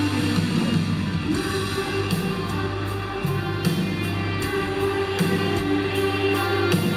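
Live rock band playing an instrumental passage over a held bass line, with drum and cymbal hits coming in a little over a second in.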